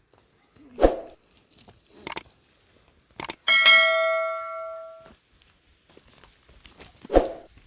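Knocks and heavy thuds of objects being handled. About three and a half seconds in, a metal object is struck once and rings with a clear, bell-like tone that dies away over about a second and a half.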